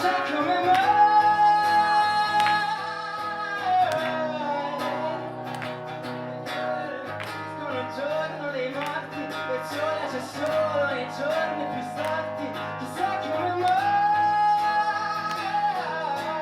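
A song performed live: a guitar strummed in a steady rhythm under a man singing long, wavering held notes.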